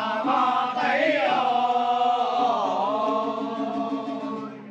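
A group of voices chanting one long held note together. The pitch bends slightly midway, then the chant fades out near the end.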